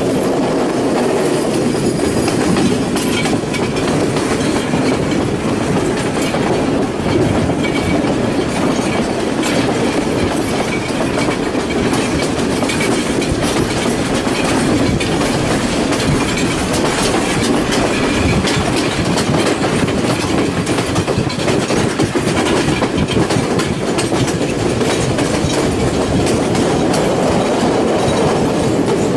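Passenger train running on the track, heard on board: a steady rumble with a constant scatter of wheel clicks and rattles.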